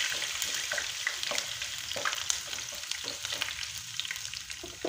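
Thin strips of ginger sizzling in hot coconut oil in a frying pan, stirred with a spatula, with a steady hiss and scattered crackles.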